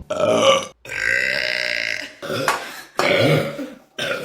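Women burping: three or four loud, drawn-out belches one after another, the longest lasting over a second.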